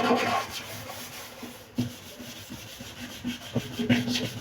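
A scouring sponge scrubbing at yellow turmeric stains on a fridge surface: hard rubbing strokes at the start, then fainter, uneven scrubbing with small knocks.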